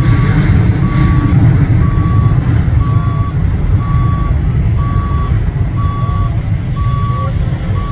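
Boeing 737-900ER's CFM56-7B jet engines rumbling at climb power, fading slowly as the airliner climbs away. Over it a vehicle's reversing alarm beeps about once a second at one steady pitch.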